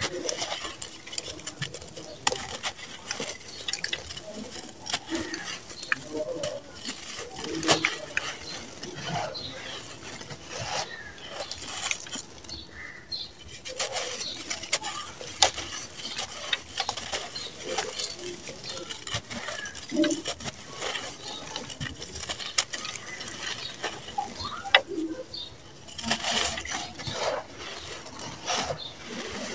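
Dry red sand-cement chunks crushed and crumbled by hand: irregular crisp crunches and crackles with grit pattering down, the crunching continuing throughout with sharper cracks now and then.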